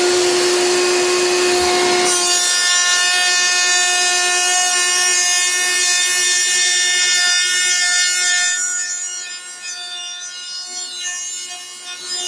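Table-mounted Bosch GMF 1600 CE router running at full speed with a mitre lock cutter, a steady high whine, as a board is fed across it and the cutter machines the mitre lock profile into its end. The cut eases off about two thirds of the way through as the board clears the cutter, then the sound builds again near the end.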